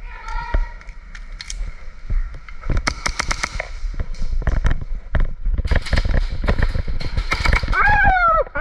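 Airsoft guns firing rapid strings of shots: one burst about three seconds in, then a longer run of fast shots from about six to eight seconds.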